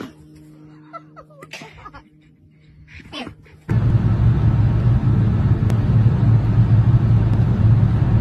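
A few faint, short sounds, then a sudden switch about four seconds in to a loud, steady low rumble.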